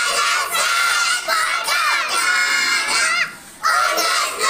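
A group of young schoolchildren chanting loudly together in chorus, with a short break a little after three seconds in before they start again.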